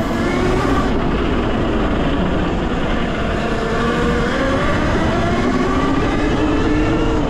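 Talaria Sting electric dirt bike's motor whining under way, its pitch falling, rising and falling again with the throttle, over a steady rushing noise.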